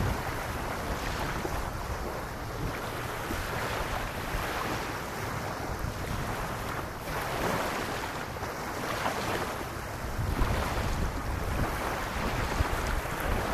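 Small waves lapping on a sandy beach, swelling and easing every few seconds, with wind rumbling on the microphone.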